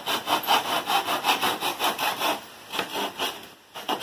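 Handsaw cutting through a wooden strip to trim it flush, quick back-and-forth strokes about three or four a second, with a short pause about two and a half seconds in and another near the end.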